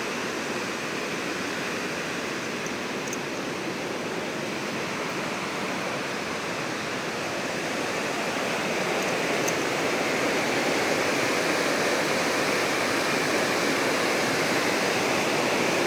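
River water rushing steadily, the flow running high; it grows somewhat louder over the second half.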